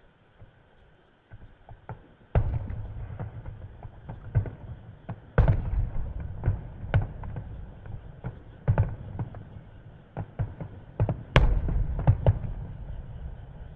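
Aerial firework shells bursting: after a quiet first two seconds, four deep booms come about three seconds apart, with smaller pops and crackles between them. The loudest boom is near the end.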